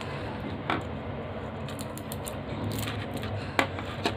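Small handling sounds of a roll of tape and a thin wire being worked by hand: a few soft clicks, about a second in and twice near the end, over a low steady hum.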